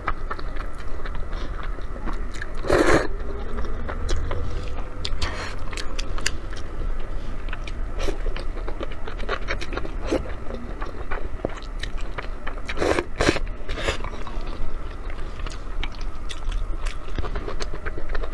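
Close-miked eating of noodles: wet chewing and many small mouth clicks and smacks, with louder slurps of noodles a few seconds in and again about two-thirds of the way through.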